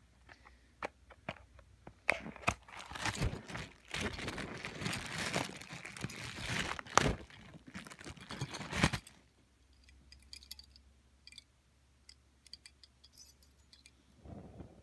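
Packaging being torn and crumpled open by hand: crinkling and crunching with sharp clicks and knocks for several seconds, stopping abruptly about nine seconds in, followed by a few faint ticks.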